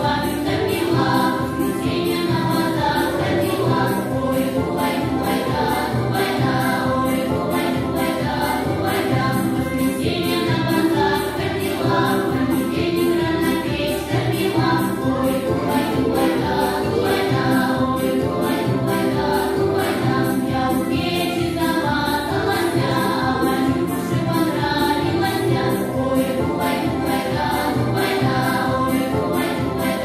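Recorded Russian folk-style song: a choir singing over instrumental accompaniment.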